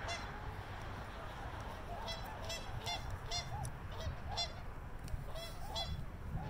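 A flock of swans calling across open water: a string of short calls, each rising and falling in pitch, coming thicker from about two seconds in, over a steady low rumble.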